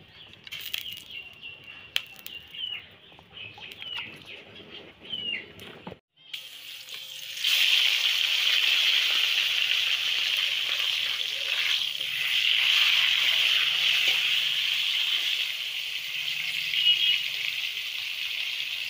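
Fish pieces coated in turmeric and salt sizzling as they fry in hot oil in a kadai. The steady sizzle starts about seven seconds in, after a quiet stretch.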